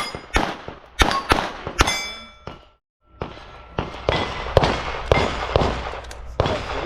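A rapid string of .22 rimfire shots, each followed by the ring of a struck steel target plate. The string breaks off abruptly about halfway through, then picks up again with more shots and plate rings.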